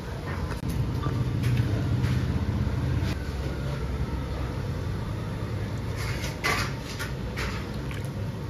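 An engine running steadily with a low hum, with a few sharp clatters near the end.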